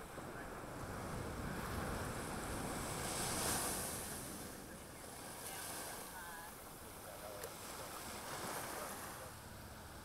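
Ocean surf washing up a sandy beach. It swells to a peak about three and a half seconds in, eases off, and rises again more gently near the end.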